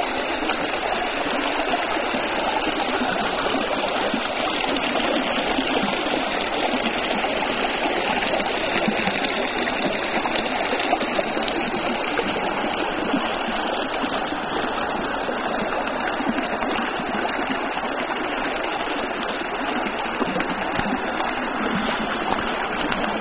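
Small stream flowing steadily, heard close up with the camera dipped in the water.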